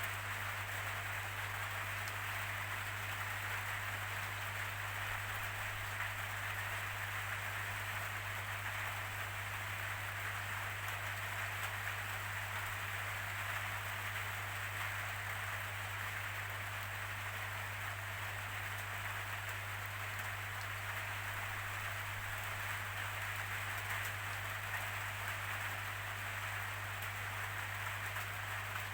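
Steady rainfall, an even, unbroken hiss that holds the same level throughout, over a constant low hum.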